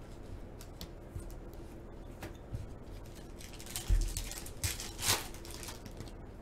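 Foil trading-card pack being handled and torn open by hand, the wrapper crinkling, with a few light clicks of cards. There is a soft thump about four seconds in, and a sharp rustle of the foil about a second later.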